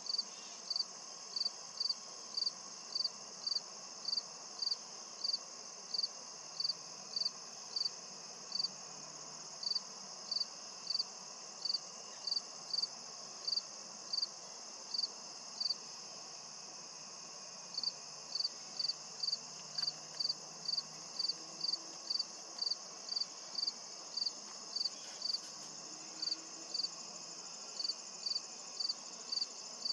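A cricket chirping at an even pace, about one and a half chirps a second, with a pause of about two seconds midway, over a continuous high-pitched insect chorus.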